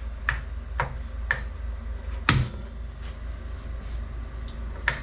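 Gas stove's spark igniter clicking as the burner knob is turned, about two clicks a second at first, with a louder, sharper click about two seconds in and another near the end, over a steady low hum.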